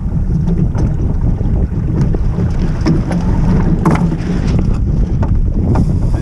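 Wind buffeting the microphone of a small sailboat under way, a heavy steady rumble. Scattered knocks and clicks of the crew and rigging come through it, with a brief rustling burst about four seconds in as the boat turns through a tack.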